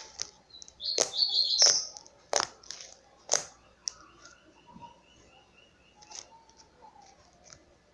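Glitter slime being squeezed and poked by hand, giving several sharp pops and crackles in the first three and a half seconds and softer clicks after. A bird chirps a quick run of notes in the background.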